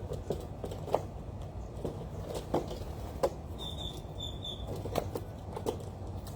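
Birds feeding: irregular light taps and clicks of pecking and scratching, with three short high chirps around the middle, over a low steady hum.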